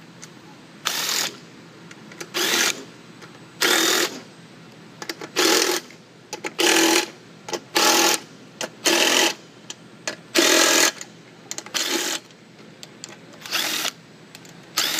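Power drill-driver with a socket spinning loosened bolts out of a Club Car golf cart transmission case, one bolt at a time. There are about ten short bursts, a second or so apart.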